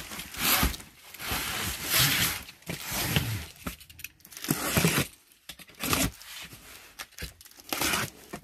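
Box cutter slicing through the packing tape on a cardboard box in a series of short strokes, with the cardboard box being shifted and scraped.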